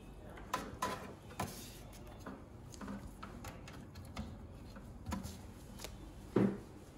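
Scattered light clicks and rustles of cables being handled and a cable plug being fitted into a port on a converter box, with a brief louder low knock near the end.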